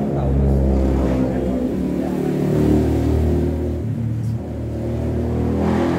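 An engine running steadily, with its pitch shifting a few times.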